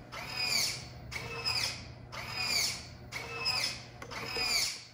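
Robot wrist servo motor whining as it swings the hand back and forth through 180 degrees: a short whine about twice a second, each one dropping in pitch, over a steady low hum.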